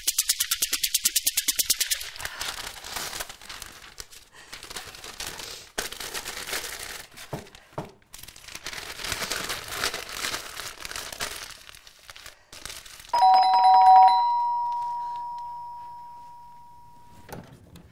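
Newspaper rustling and crumpling on a table, after a quick run of clicks in the first two seconds. About thirteen seconds in, an electric doorbell chimes two notes at once; the lower note is cut short and the higher one rings on and fades over several seconds.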